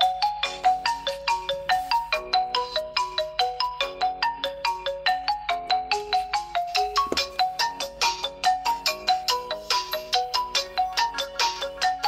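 ZTE Axon 40 Ultra ringtone playing: a quick, bright melody of short struck notes, about six a second, repeating in a looping pattern.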